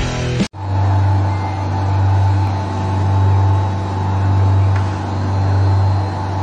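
Background music cuts off abruptly about half a second in. A loud, steady low hum follows, with a fainter higher tone above it, swelling and easing gently about once a second.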